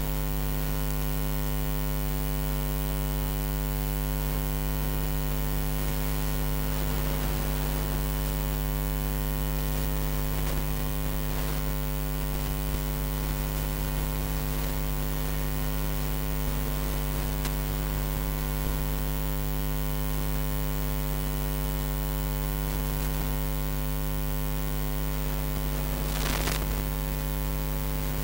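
Loud, steady electrical mains hum with a buzzing stack of overtones and a layer of static hiss. A brief burst of noise comes near the end.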